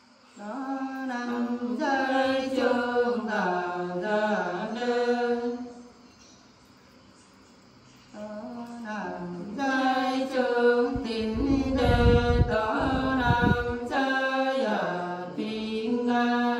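Women singing a Nùng folk song unaccompanied, together in one melodic line with long, slowly gliding held notes. Two phrases, with a pause of about two seconds between them.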